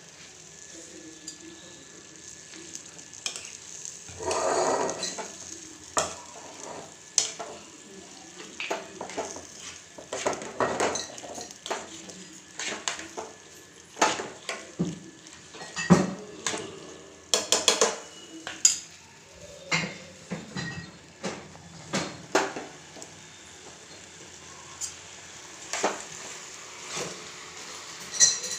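A spoon stirring sauce-coated macaroni in a metal pan on a lit gas stove. Irregular scrapes and clinks of the spoon against the pan run over a low sizzle, with a longer scrape about four seconds in.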